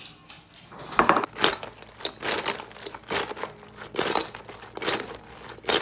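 Sauce-covered fried chicken wings being tossed by shaking a large bowl: a rhythmic series of wet swishes and knocks, about two or three a second, starting about a second in, as the wings are coated in the sauce.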